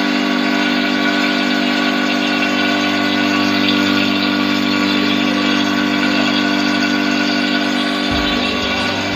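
Refrigeration vacuum pump running with a steady hum, evacuating the newly fitted compressor's system through the suction line to draw the moisture out.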